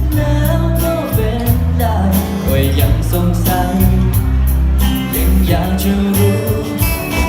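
A live pop band playing an instrumental passage between sung lines. A heavy bass and a drum kit with steady cymbal hits sit under a melodic lead line that bends in pitch.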